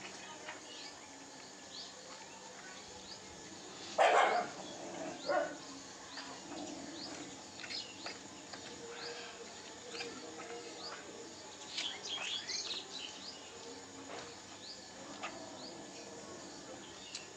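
Small birds chirping repeatedly, short high chirps scattered throughout. Two louder, brief sounds come about four seconds and five seconds in.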